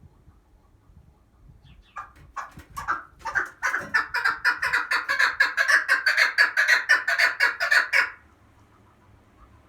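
Female chukar partridge calling: a run of clucking notes that starts slowly about two seconds in, quickens to about five notes a second and stops abruptly near the end. It is the female's call that draws male partridges in.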